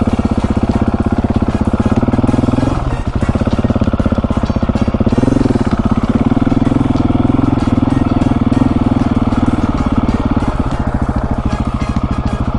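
Husqvarna 701 Supermoto's single-cylinder engine running steadily under way, with a brief rise in revs about five seconds in.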